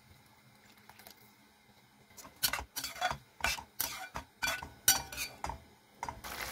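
A spatula stirring curry in a stainless steel pan, knocking and scraping against the metal about ten times in quick succession, starting about two seconds in. Near the end, the gravy starts bubbling at the boil.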